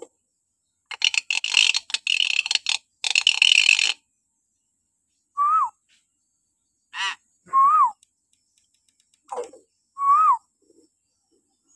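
Hill myna calling: a harsh, rasping screech lasting about three seconds, then three short whistles that rise and fall, a couple of seconds apart, with a few short clipped notes between them.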